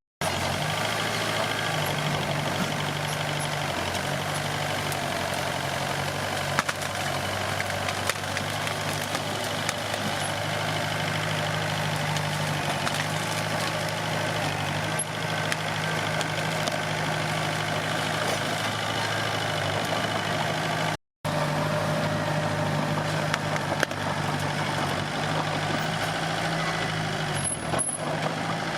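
Komatsu D21P bulldozer's diesel engine running steadily with a low, even hum and mechanical clatter. The sound cuts out briefly once, about two-thirds of the way through.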